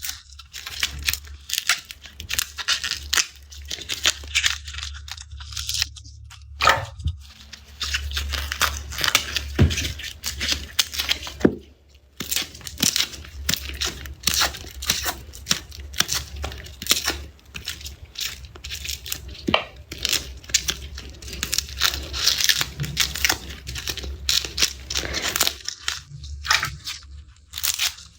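Dry, papery garlic skins being peeled and torn off cloves by hand: a rapid, irregular run of crisp crackles and tearing sounds with a few brief pauses, over a steady low hum.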